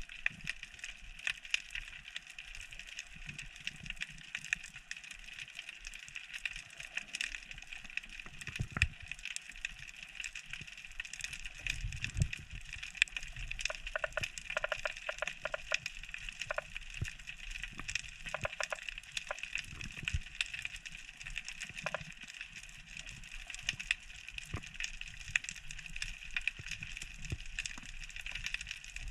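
Underwater reef crackle heard through the submerged camera among kelp: a steady, dense crackling of countless small clicks, with a few low thumps about twelve seconds in.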